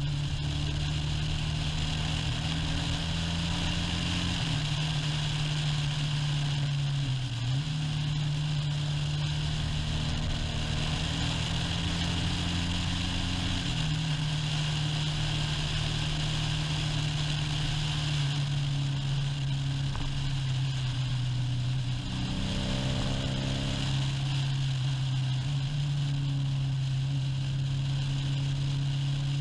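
Motorcycle engine running at road speed while riding, its pitch shifting up and down in steps several times, with brief dips about seven seconds in and around twenty-two seconds in. A steady rushing noise runs under it.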